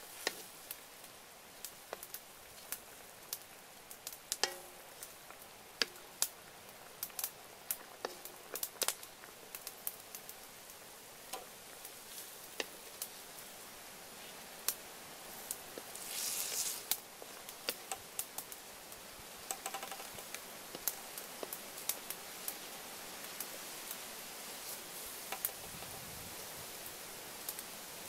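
Chicken wings boiling in a wide metal pot of water: a steady hiss with scattered sharp pops and clicks, as a wooden spoon stirs and scoops the wings out into a bamboo basket. A brief louder rush of noise comes about sixteen seconds in.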